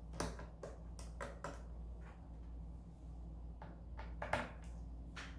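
Scattered light clicks and taps of a screwdriver and small screws on a laptop's bottom case while its back screws are taken out, over a low steady hum.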